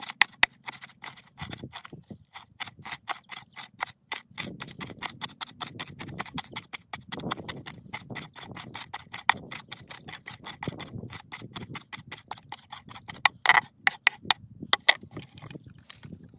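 Large kitchen knife chopping a pile of fresh herbs on a wooden cutting board: quick, steady knife strikes about five a second, with a few harder chops near the end.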